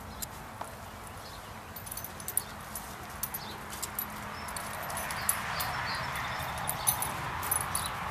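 Great Dane walking on grass with a wobbly, ataxic gait caused by spinal cord degeneration. Its metal collar tag gives irregular light clinks and its paws scuff the grass. A rustling hiss grows stronger about halfway through.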